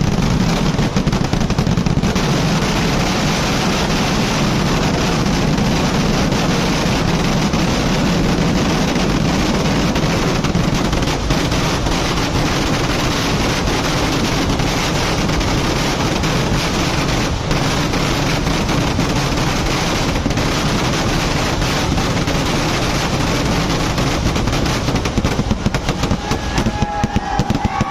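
A long string of firecrackers going off in a continuous dense crackle of rapid bangs.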